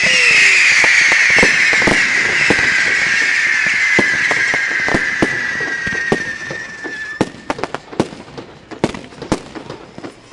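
Display fireworks: a long, shrill firework whistle falls slowly in pitch for about seven seconds over scattered pops. After it stops, a rapid run of sharp crackling reports follows.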